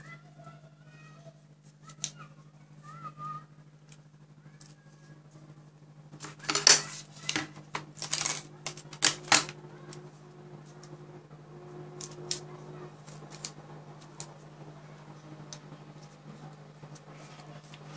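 Sticky tape pulled off its roll and torn, a cluster of sharp, crackling strokes about six to nine seconds in, followed by lighter handling clicks, over a steady low hum.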